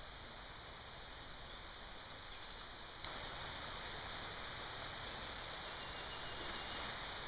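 Steady rain falling, an even hiss that gets a little louder about three seconds in.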